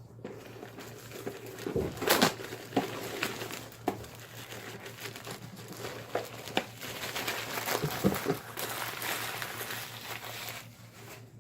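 Packaging crinkling and rustling, with scattered sharp crackles, as a new 50-foot 3/8-inch air hose is unwrapped and handled.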